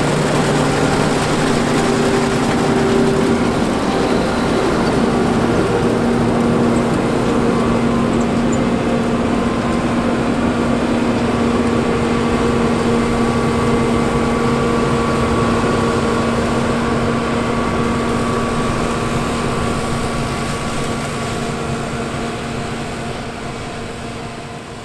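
John Deere 9450 combine running steadily while harvesting wheat, its engine and threshing machinery making a continuous hum with a steady tone. The sound fades out over the last few seconds.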